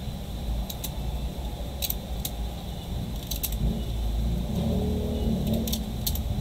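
Rubber bands being pulled off a phone, snapping against it in a handful of short sharp clicks. The bands had clamped a freshly glued replacement screen while the adhesive set. A low rumble runs underneath, a little louder in the second half.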